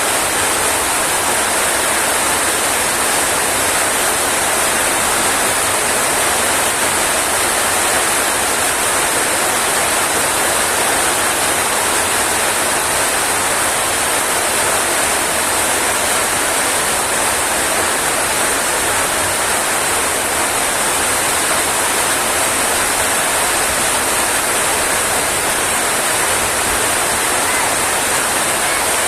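Heavy rain falling in a steady, even hiss with no breaks.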